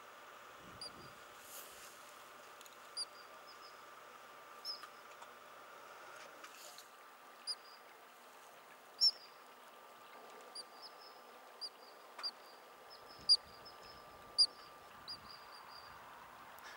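Ground squirrel giving short, high alarm chirps, a dozen or more at irregular intervals, some in quick pairs and the loudest in the second half.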